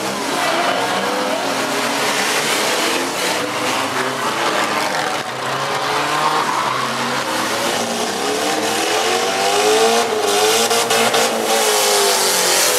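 Several six- and four-cylinder demolition derby cars with engines revving hard and overlapping, rising and falling in pitch, with tires squealing. A few sharp metal crashes come near the end as cars hit each other.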